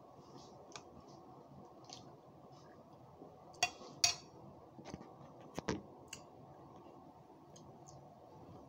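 A metal spoon clicks against a ceramic bowl during eating: a few sharp clinks, two around the middle and a quick pair a couple of seconds later, over quiet room tone.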